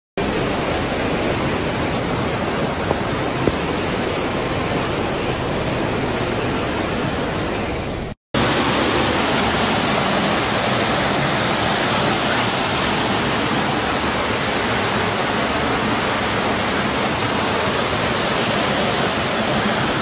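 Floodwater rushing through a street: a loud, steady rush of water. About eight seconds in it breaks off and a second recording of a torrent of floodwater takes over, a little louder and brighter.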